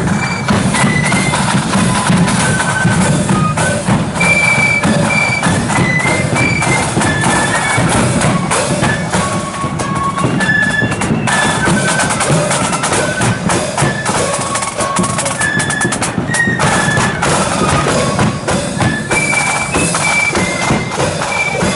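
A marching flute band playing a tune: high flutes carry a melody of short, quick notes over steady side and bass drumming.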